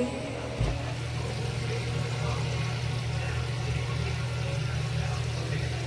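Steady low hum of a kitchen fan motor running, with a single knock about half a second in.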